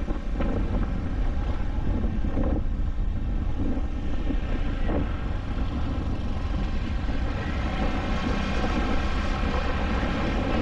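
Motor scooter being ridden along a road: steady engine and road noise with wind buffeting the microphone.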